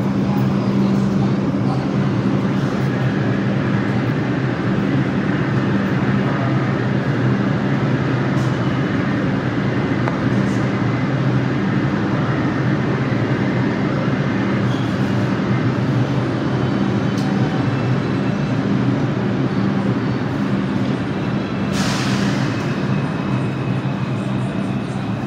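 New York City subway train running with a steady rumble and a low, even hum, and a short hiss near the end.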